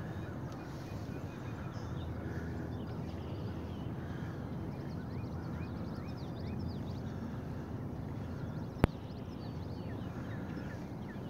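Outdoor ambience on a river: a steady low rumble with many short, high chirping calls throughout, and one sharp click about nine seconds in.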